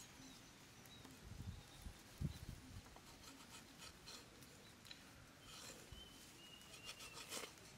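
Faint scraping of a knife blade over the charred skin of a fire-roasted rat, scraping off the burnt fur, with dry straw rustling under it. A few soft low knocks about two seconds in, and the scraping strokes come thicker in the second half.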